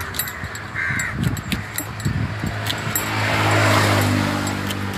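A large knife chopping through fish, making sharp repeated strokes on a hard cutting surface. A crow caws about a second in, and a steady engine drone sets in from about three seconds in.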